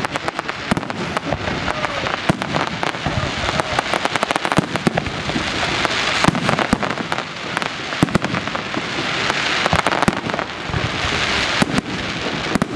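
Aerial fireworks display: shells bursting with rapid, dense crackling and pops from their stars, over a steady hiss of burning effects.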